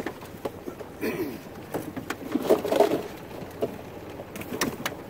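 Scattered clicks, knocks and scrapes of Dungeness crabs and the wire-mesh crab pot being handled as crabs are pulled out, with a short low murmur of a voice near the middle.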